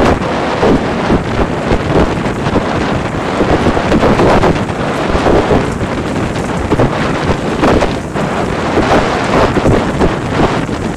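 Heavy downpour of rain with wind buffeting the microphone in gusts.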